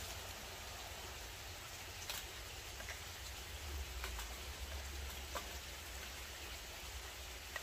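Small wood fire burning in a titanium twig stove: a steady hiss with a few sharp, scattered crackles and pops as sticks are fed into it.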